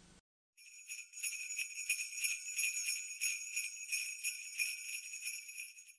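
Sleigh bells jingling, shaken in a steady rhythm, starting about half a second in and stopping just before the end.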